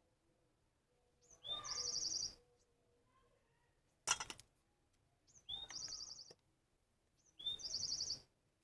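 A songbird sings the same short song three times, each a quick high rising note, a falling note, then a fast trill. About four seconds in, a single sharp click, the loudest sound, fits the metal cutters snipping through the seedling's root.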